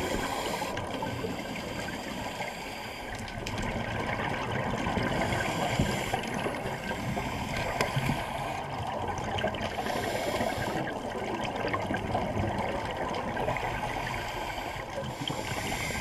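Seawater sloshing and splashing steadily.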